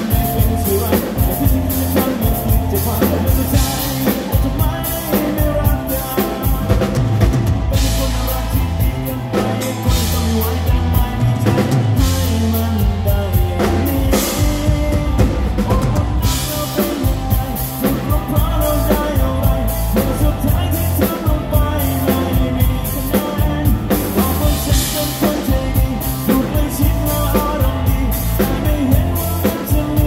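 A live rock band playing: a drum kit keeping a steady beat under electric guitar and bass guitar, with a male voice singing.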